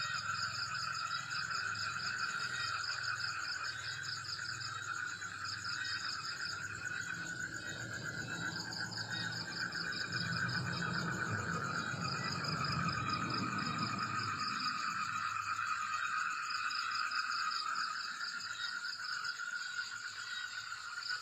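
Night chorus of calling insects and frogs: steady, overlapping high trills at several pitches, one of them pulsing rapidly on and off. A low rumble swells and fades in the middle.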